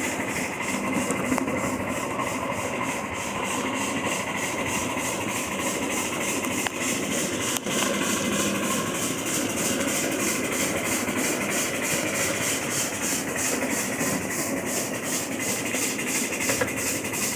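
Scale-model Erie steam locomotive working along the track with a steady, fast rhythm of hissing exhaust chuffs, and rail noise from the train beneath. One sharp click about halfway through.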